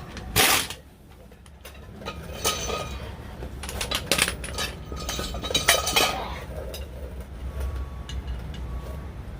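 Steel clinks and knocks of wrench and bolts as jacking bolts are turned to push a heavy front brake rotor off a bus hub, starting with one loud knock about half a second in and running on as scattered clinks, over a steady low hum. The rotor is working loose.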